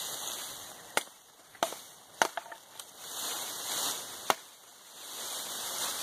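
Hand-forged Husqvarna camp axe chopping a bamboo pole: four sharp, unevenly spaced strikes with a couple of fainter taps among them, and a rustling hiss rising and falling between the blows.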